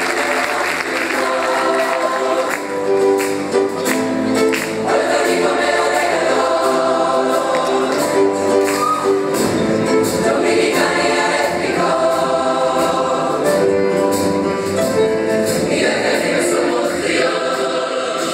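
Large youth choir singing an upbeat song together in harmony, many voices at once, loud and sustained.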